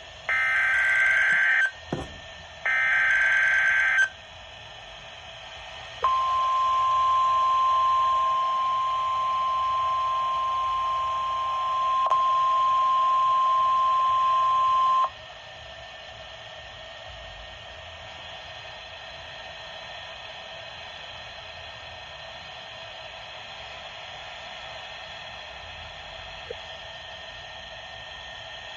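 NOAA Weather Radio Emergency Alert System test broadcast: two short bursts of SAME digital header tones in the first four seconds, then a steady 1050 Hz alert tone for about nine seconds. After the tone cuts off, only a steady radio hiss remains, with no test message following.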